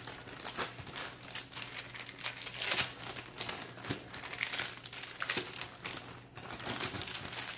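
Plastic zip-top bag and parchment paper crinkling in irregular rustles as frozen chocolate whips are peeled off the paper and dropped into the bag.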